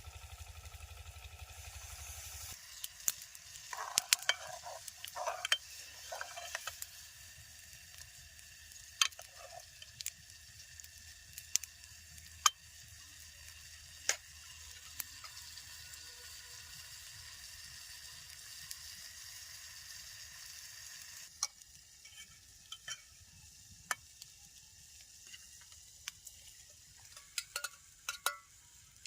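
Food sizzling in a hot pan, a steady hiss with scattered pops and clicks; the hiss fades about three quarters of the way through while the odd pop goes on. A low hum cuts off after two or three seconds.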